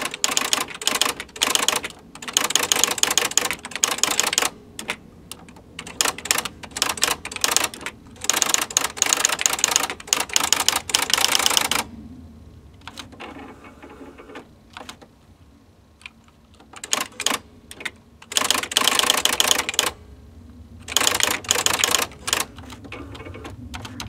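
Packard Bell PB10TX electronic typewriter printing as keys are typed: rapid runs of sharp mechanical strikes in bursts of a second or several, broken by short pauses, with a longer quiet gap of a few seconds about halfway through.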